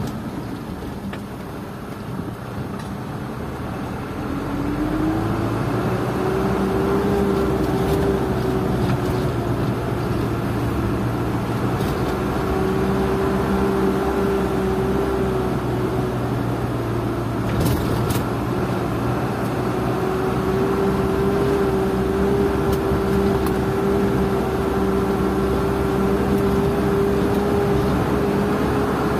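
Isuzu Elf NKR71 light truck's diesel engine running, heard from inside the cab, picking up speed about four seconds in, when it gets louder and a whine rises in pitch and then holds steady as the truck cruises. A couple of sharp knocks come a little past the middle.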